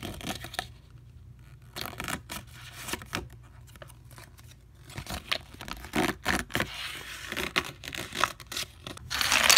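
A folded paper leaflet being unfolded and handled, its paper crinkling and crackling in short, irregular rustles that get busier about halfway through. A much louder rush of noise starts right at the end.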